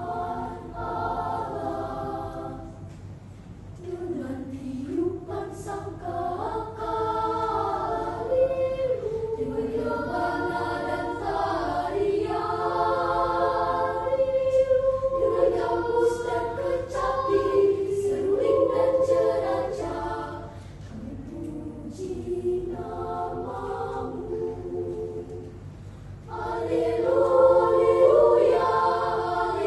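A choir singing in several-part harmony with long held notes. It grows quieter for a stretch and then swells to its loudest a few seconds before the end.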